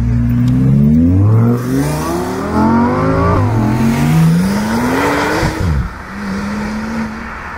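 Sports car engine accelerating hard, its pitch climbing and dropping back in steps through several upshifts. About five and a half seconds in the pitch falls away quickly, and a steadier engine note follows.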